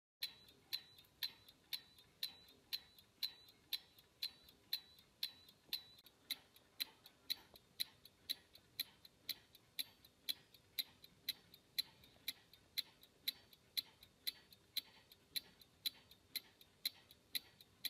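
Barraud and Lund marine chronometer movement ticking steadily, a sharp tick about twice a second with fainter clicks between: the detent escapement beating half-seconds, the chronometer running.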